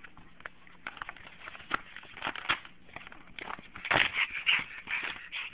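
Pug puppy chewing and pawing at sheets of paper homework: rapid crinkling and rustling, loudest about four seconds in.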